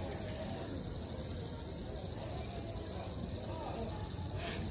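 A steady, high-pitched drone of summer insects, with distant voices of other people murmuring underneath.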